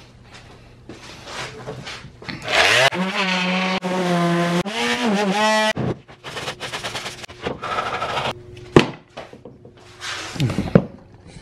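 A handheld power tool motor spins up about two and a half seconds in, runs for about three seconds with its pitch wavering under load, then cuts off. Scraping strokes and a sharp knock follow, with a short falling whine near the end.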